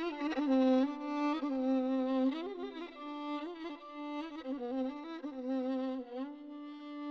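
Solo violin (keman) playing a Turkish taksim, an unaccompanied improvisation: a single melodic line with slides and quick ornaments, settling near the end on a long held note with vibrato.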